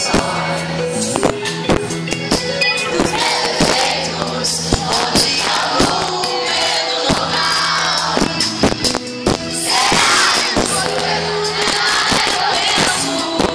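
Live pop band playing, with a woman singing over drums and electric guitar, heard from among the audience. The crowd shouts and sings along, swelling about ten seconds in.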